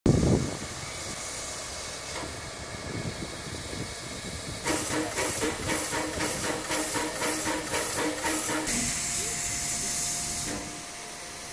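PKP Pt47 steam locomotive hissing steam. It opens with a loud burst, then gives a steady hiss, then about four seconds of rhythmic pulsing at about three beats a second, then a brighter, louder hiss.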